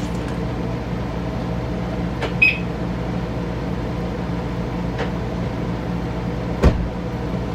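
Door handle and locks of an Audi Q3 being tried over a steady low hum: light clicks, one short high beep about two and a half seconds in, and a heavy thump near the end, like the door being pulled or shut.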